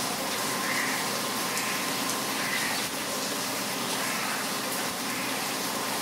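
Heavy rain falling steadily, a dense even hiss, with a few faint bird calls now and then.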